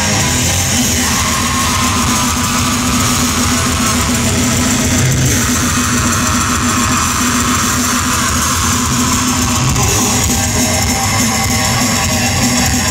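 A death metal band playing live and loud: heavily distorted electric guitars with bass and a drum kit, running steadily without a break.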